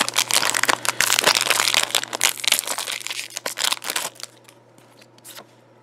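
Foil booster-pack wrapper of trading cards crinkling in the hands as the pack is worked open, a dense crackle that dies away after about four seconds.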